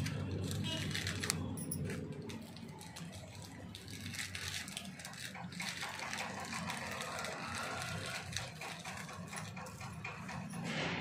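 Plastic and foil packaging rustling and crinkling as hands open a small parcel, with scattered light clicks and snips.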